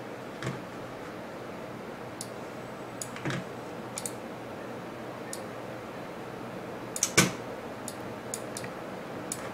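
Scattered computer mouse clicks and keyboard taps, about a dozen at irregular intervals, over a steady low hum. A louder pair of clicks comes about seven seconds in.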